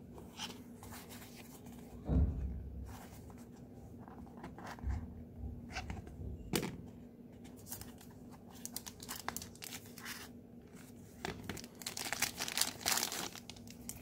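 Crinkling and rustling of the thin wrapping as it is peeled off a Zippo lighter in its gift box, densest and loudest near the end. A low thump about two seconds in and a sharp click midway come from the box being handled.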